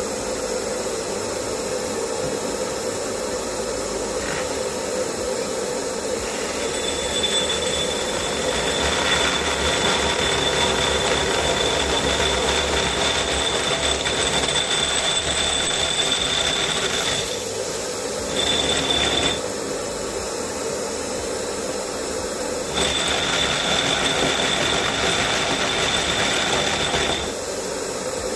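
SDS Plus rotary hammer drill boring into concrete with a 65 mm carbide-tipped core bit, running steadily. It gets louder with a high whine in three spells: a long one from about seven seconds in, a short one, and another near the end.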